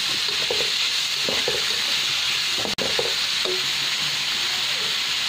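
Diced potato and onion sizzling steadily in hot oil in a wok, being stirred with a spatula. The sizzle cuts out for an instant about halfway through.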